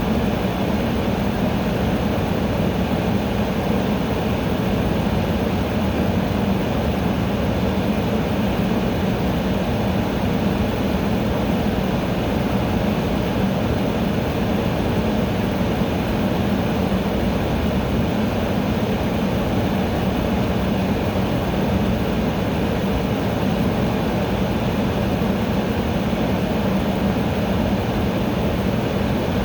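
Air conditioner running: a steady, unchanging hum of fan and rushing air with a low drone.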